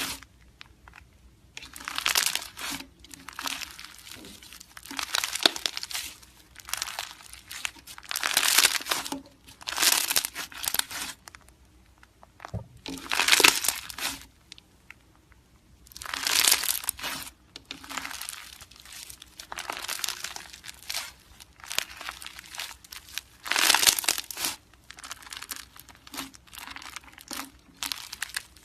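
Crunchy slime being squeezed and pressed by hand, crackling and popping in repeated bursts, one every second or two with short quiet pauses between.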